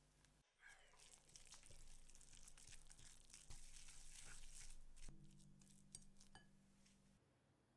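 Wire balloon whisk stirring a thick paste of flour and cocoa powder in a glass bowl: quiet scraping and squishing, with scattered clinks of the wires against the glass, dying away shortly before the end.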